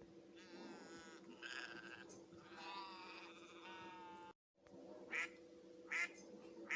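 Sheep bleating in long, wavering calls. After a short cut, a duck quacks three times, about a second apart. A faint steady hum runs underneath.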